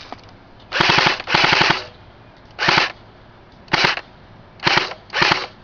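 CYMA 1928 Thompson airsoft electric gun firing six short full-auto bursts, each a rapid rattle of its motor-driven gearbox cycling at about a dozen shots a second. The first two bursts come back to back about a second in and are the longest; the rest are brief taps spaced about a second apart.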